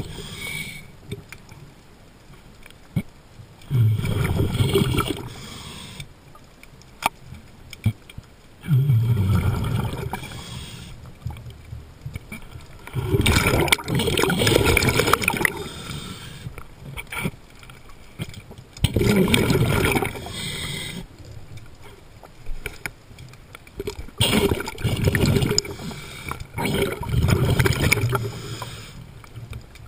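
Underwater sound of a diver's breathing picked up close to the mask: bursts of bubbling and gurgling that come back about every five seconds, with quieter water noise between.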